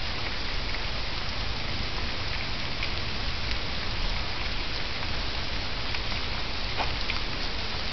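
Wet snow falling steadily on leaves and the ground: a continuous even hiss with scattered faint ticks.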